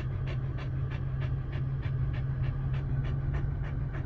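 A dog panting rapidly and steadily, about three breaths a second, over a steady low hum.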